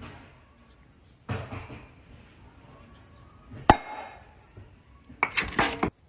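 A cork popping out of a glass bottle with a single sharp pop, followed near the end by a short cluster of louder, sharp noises.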